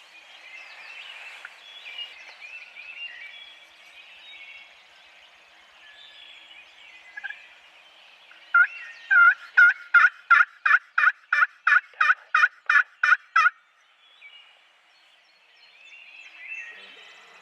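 A run of about a dozen loud turkey yelps, a little over two a second, over a background of songbirds chirping.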